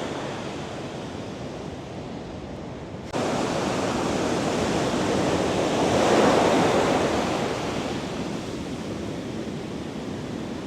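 Heavy ocean surf breaking and washing in, a steady rushing noise. It turns abruptly louder about three seconds in and swells to a peak of crashing water around six seconds before easing off.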